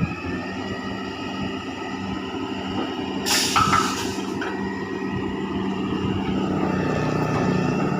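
Hydraulic drilling rig running steadily with a hum and a few held whining tones, and a loud burst of hissing, like a blast of air, about three seconds in that lasts about a second.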